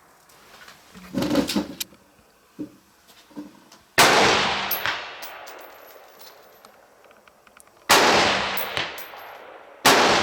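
Three rifle shots, the first about four seconds in, the next two about two seconds apart, each echoing away slowly across the open range. A short clatter of handling noise comes about a second in.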